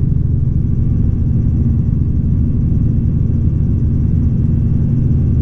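Steady drone of a Robinson R44 helicopter in forward flight, its rotor and six-cylinder piston engine heard from inside the cabin as an even low rumble.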